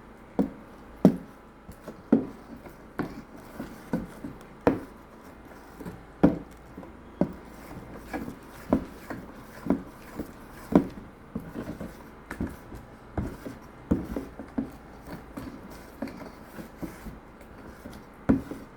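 A spoon stirring a thick okpa batter of ground bambara nut flour, oil and warm water in a bowl, knocking about once a second with rubbing between strokes.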